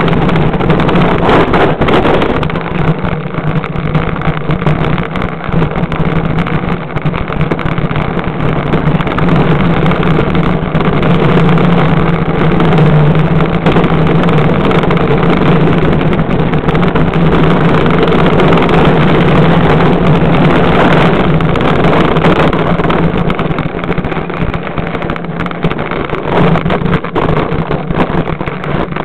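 Unpowered luge cart's wheels rolling fast down a paved track, a loud, steady rumble with a droning hum, easing a little near the end.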